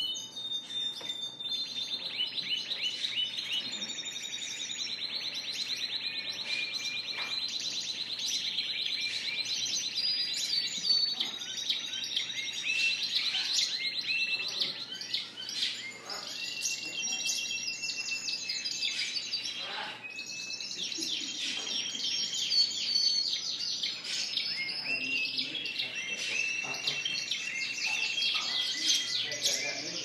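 Canaries singing: long, very fast rolling trills mixed with chirps and warbled phrases, more than one bird at once, with no break.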